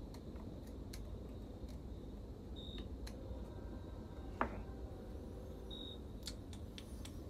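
Small metal tool clicks and scrapes of a pick working at a chainsaw's piston-pin circlip, with one sharper metallic tap about four seconds in that rings briefly. A steady low shop hum runs underneath.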